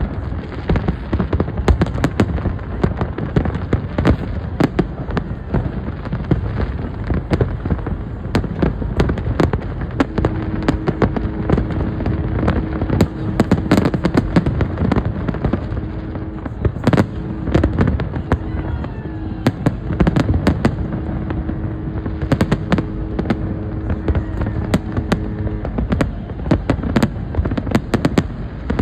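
A New Year's fireworks display: a dense, continuous barrage of shell bursts, bangs and crackle with no let-up. Through the middle a steady low tone is held, on and off, under the bangs.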